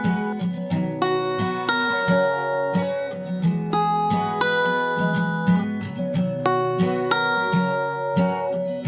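Background music led by plucked acoustic guitar, notes ringing out in a steady rhythm.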